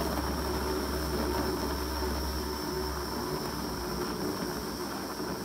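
Battery-powered USB portable blender bottle running steadily, its small motor and blade churning a milkshake inside the bottle.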